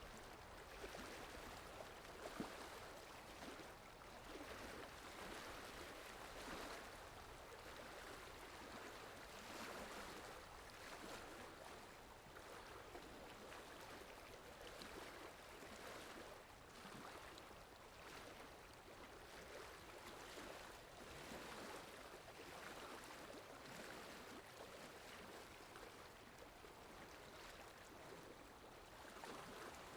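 Faint, steady flowing water like a running stream, swelling and easing gently every second or two, used as a background sound effect. A single brief tap sounds about two and a half seconds in.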